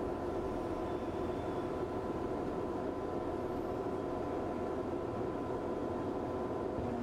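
Sany SW405K wheel loader's diesel engine idling, a continuous even hum.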